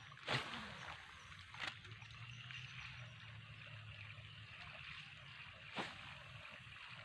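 Quiet outdoor background with a steady faint hiss, broken by three short sharp knocks: one just after the start, one about a second and a half in, and one near six seconds.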